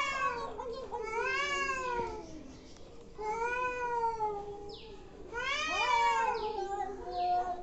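Angry cats yowling at each other: four long, drawn-out wavering calls, two voices overlapping at times, with short breathy bursts between the later calls. The yowling is the sound of a hostile standoff between cats.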